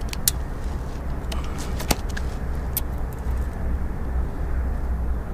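A few sharp taps and clicks as a tape measure and a crappie are handled on wooden dock boards, over a steady low rumble.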